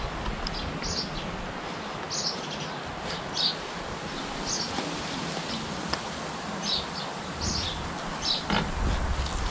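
Small birds chirping in short, scattered calls over a steady outdoor background hiss, with one brief soft knock near the end.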